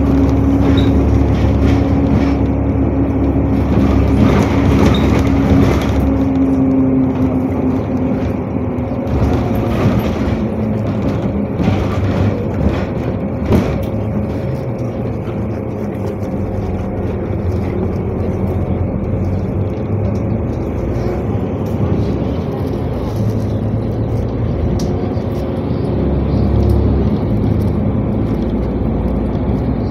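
Interior noise of a NefAZ-5299 city bus on the move: steady engine running and road noise, with a held whine that fades out about eight seconds in, and occasional light rattles and clicks.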